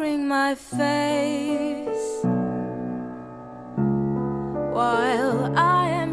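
Slow, sad ballad music: sustained piano chords under a melody line whose long held notes waver with vibrato.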